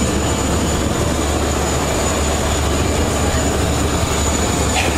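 Cessna Caravan's PT6A turboprop engine and propeller running, heard from inside the cabin as a loud, steady drone, with a thin high whine on top.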